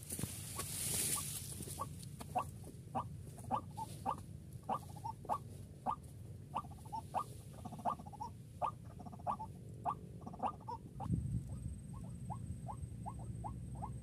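White-breasted waterhen (burung ruak-ruak) calling: a long run of short, clipped notes, about two a second, quickening to about three a second near the end. A brief whoosh sounds at the very start.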